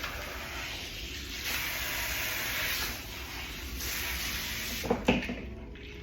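Handheld salon sink sprayer hissing as warm water rinses hair at a shampoo bowl, surging louder twice. Two short knocks come about five seconds in, and the spray then falls away.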